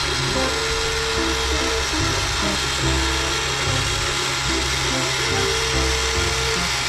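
Background music with a simple melody, over the steady whir of a toy RC forklift's small electric motor as the forks lift.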